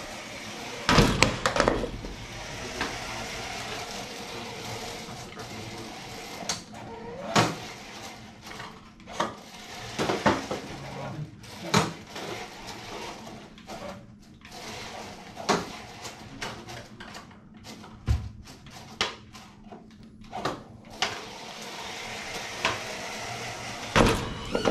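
An FTC competition robot running on the field, its motors giving a steady hum under irregular knocks and clacks from its mechanisms and game pieces, with the loudest knocks about a second in and near the end.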